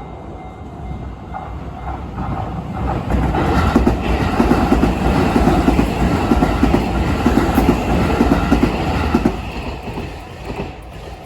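An electric commuter train passing through a level crossing at speed, its wheels clacking over the rail joints. The sound swells to its loudest about three seconds in and fades away over the last couple of seconds.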